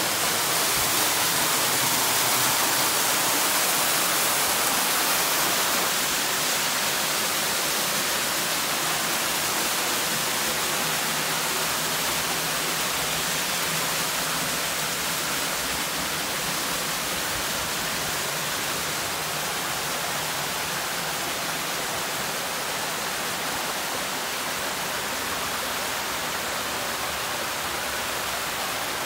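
Steady rush of a stream cascading over rocks in a narrow gorge, an even water noise that grows slowly fainter.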